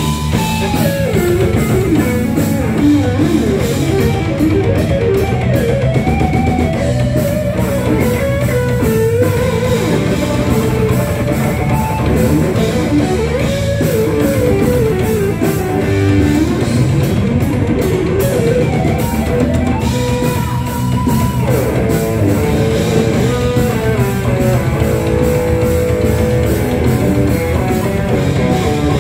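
Thrash metal band playing live without vocals: distorted electric guitars, bass and a drum kit with fast, even cymbal strokes. Over them a lead line bends between notes and holds one long high note about twenty seconds in.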